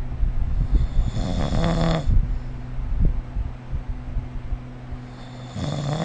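A sleeping person snoring: two snores, each with a buzzing, pitched tone. One comes about a second in and lasts about a second; the other starts near the end.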